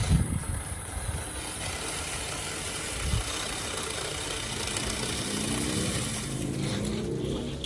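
A motor running steadily, with a pitched hum that wavers up and down in the last few seconds.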